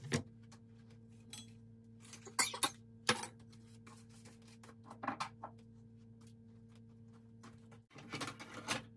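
Scattered light clicks and knocks of kitchen handling, among them a steel kitchen knife being set down on a plastic cutting board, over a steady electrical hum.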